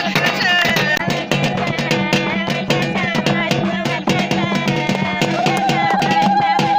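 Lively music with a fast drum beat under a wavering melody line, played for dancing; a long held note comes in near the end.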